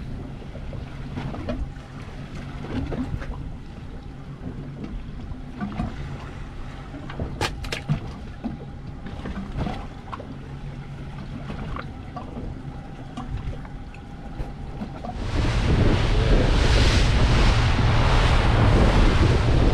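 Yamaha 225 outboard idling as a steady low hum, with a few small clicks of line and tackle being handled. About 15 seconds in it switches abruptly to the boat running at speed: loud engine rumble, rushing water from the wake and wind on the microphone.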